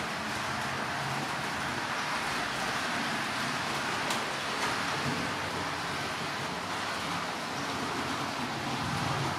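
Several model trains running under DCC control: a steady whirr of small electric motors and wheels rolling on the rails.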